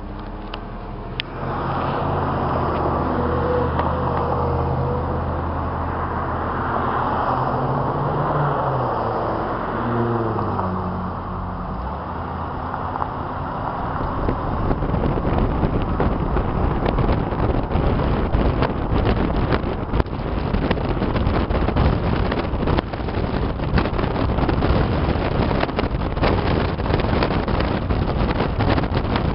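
1958 Chevrolet Bel Air's 283 V8 accelerating, its pitch rising and then dropping about eleven seconds in. After that, wind buffeting the microphone covers the engine and road noise as the car drives along.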